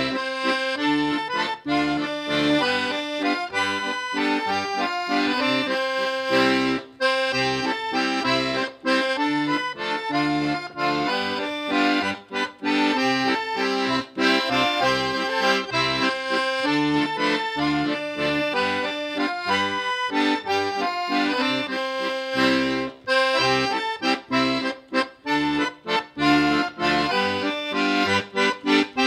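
Instrumental background music: a melody over held chords, moving in a steady rhythm.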